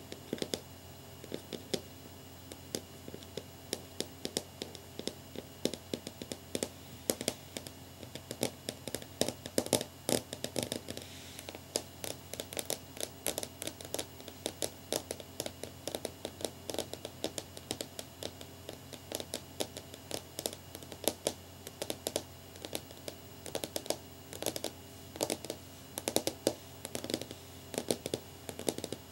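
Long fingernails tapping rapidly and irregularly on a clear glass or plastic pane, in quick clicky runs of several taps a second.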